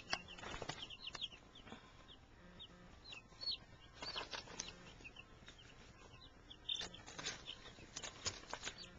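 Young chicks peeping faintly, with short high chirps scattered throughout and a few brief scuffs and rustles.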